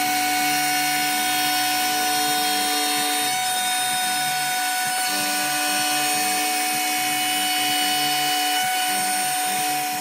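Evolution 4 CNC machine running its compact router into the MDF spoiler board. A steady high-pitched whine runs under lower tones that change pitch in steps as the machine moves.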